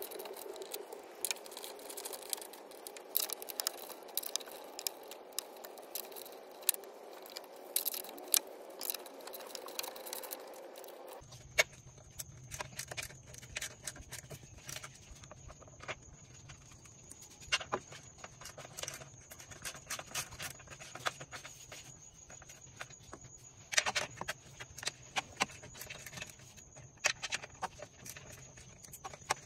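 Scattered clicks, taps and small metallic rattles of pliers working a spring hose clamp and hose on a plastic coolant reservoir. About eleven seconds in, the steady background changes abruptly to a faint high whine over a low hum.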